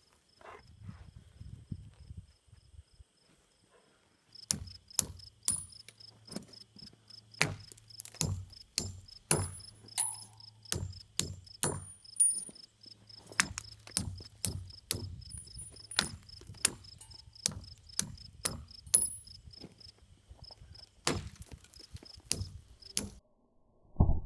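Insects chirping in a steady pulsing trill under a low steady hum, with a string of sharp knocks about one or two a second.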